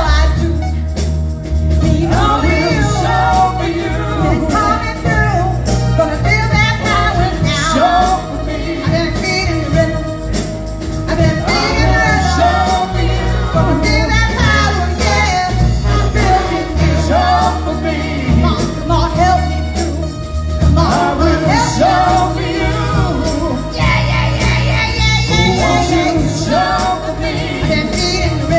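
Live band music: a singer over a steady bass line and drums.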